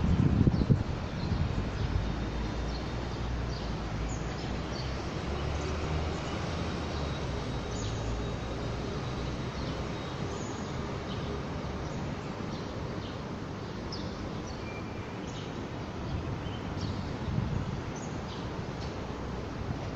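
Steady outdoor city background hum with birds chirping here and there. Wind hits the microphone at the very start.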